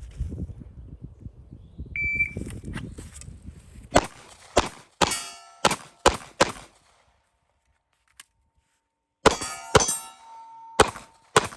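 A shot-timer beep, then a Glock 19 9mm pistol firing six quick shots, a pause of under three seconds for the reload, and four more shots. Metallic ringing trails some of the shots.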